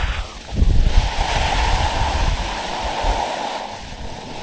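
Gusting wind rumbling on the microphone over a steady hiss of skis sliding through wet slush. The rumble eases off near the end.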